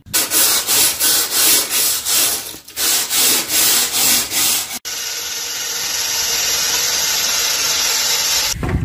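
Hand scrubbing or scraping of mud and dirt off a vehicle chassis, in quick back-and-forth strokes of about three a second. About halfway through it cuts to a steady hiss that grows slightly louder.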